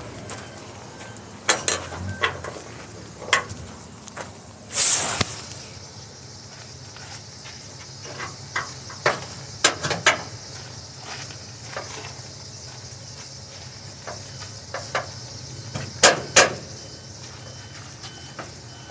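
Scattered knocks, clicks and clanks from hands-on work at a flatbed trailer's deck edge, with a short scraping rush about five seconds in and two sharp clacks, the loudest, near the end, over a steady high hiss.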